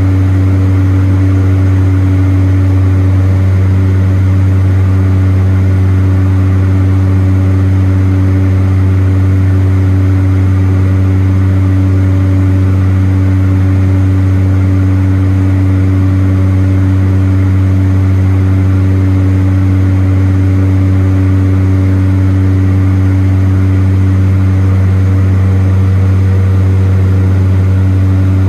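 The two Pratt & Whitney Canada PT6A turboprop engines and propellers of a de Havilland Canada DHC-6 Twin Otter drone steadily in flight, heard inside the cabin. It is a loud, deep, even hum that holds one pitch throughout, with a rushing hiss over it.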